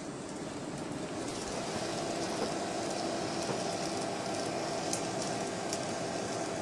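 Fleischmann N-scale model train running on its track: a steady small-motor hum with wheel noise, and a few light clicks.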